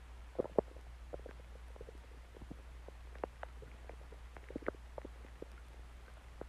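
Human stomach growling and gurgling: a scatter of short, irregular pops and squelches, the loudest about half a second in, over a steady low hum.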